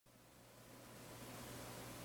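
Sears Kenmore 14-inch box fan running: a faint, even hiss of moving air over a steady low electric motor hum, growing louder across the two seconds.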